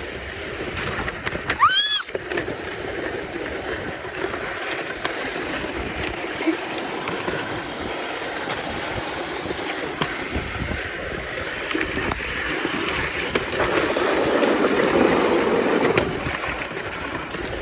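Sled sliding fast down an icy slope: a steady rushing hiss of the slide and wind on the microphone. It grows louder about three-quarters of the way through and drops off sharply a little before the end. A brief high squeal rises and falls about two seconds in.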